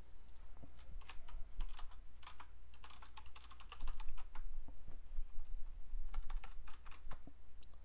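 Typing on a computer keyboard: irregular runs of key clicks, thickest in the middle, over a steady low hum.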